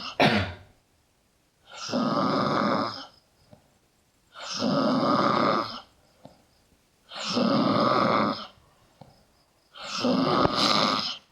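A sleeping person snoring loudly: four long snores, each over a second, coming about every three seconds, with quiet between them.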